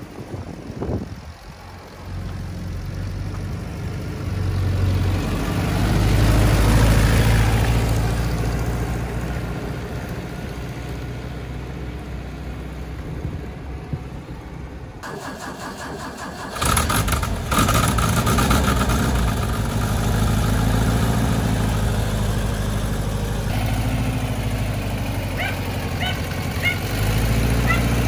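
1964 Volkswagen Type 2 Ruthmann V-80 cherry picker truck's air-cooled flat-four engine running as the truck drives past, loudest about seven seconds in and then fading as it pulls away. About halfway through, the engine is heard up close, idling steadily.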